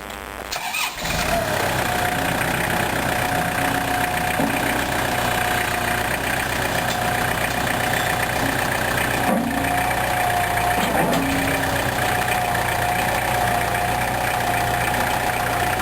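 Tractor engine running steadily as the tractor drives its bucket into a pair of clamp-on bucket forks. The engine noise comes up loud about a second in, with a steady, slightly wavering high whine over it.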